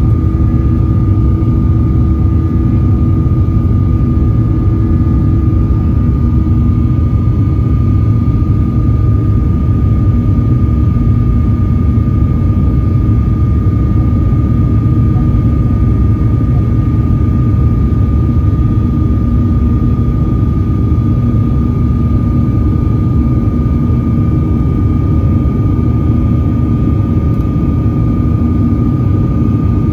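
Boeing 737-800's CFM56-7B turbofan engines running steadily in the climb after takeoff, heard inside the cabin from a seat over the wing: a loud, constant low rumble with a steady high whine on top.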